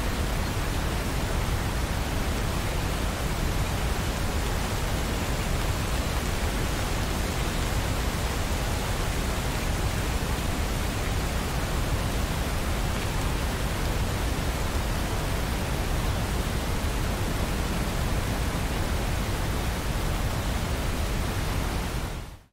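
Steady rain, an even hiss with no separate drops or thunder standing out, cutting off abruptly near the end.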